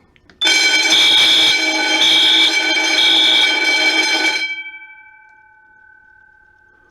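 Fire alarm drill: a Wheelock 10-inch bell rings continuously while a Wheelock AS horn sounds three pulses in the temporal code-3 pattern. Both cut off together about four and a half seconds in, and the bell's gong is left ringing out as it fades.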